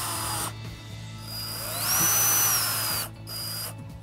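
Cordless screw gun driving screws into a steel bracket. One run of the motor whine stops about half a second in; a second run starts about a second later, rises in pitch as it spins up, and winds down about three seconds in.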